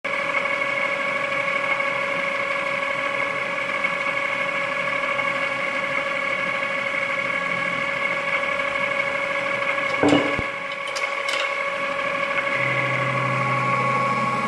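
Metal spinning lathe running with a steady, even whine as the workpiece turns on the mandrel. About ten seconds in there is one short knock, and near the end a lower hum joins as the hand-held spinning tool is worked against the turning metal.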